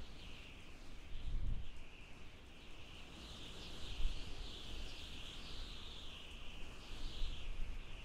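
Strong mountain wind: a high, wavering whistle that swells and fades over low gusts that rumble up about a second and a half in and again around four seconds in.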